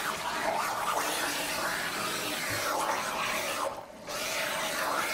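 Warm running water rinsing shampoo off a dog's front legs and coat, a steady hiss of water that dips briefly just under four seconds in.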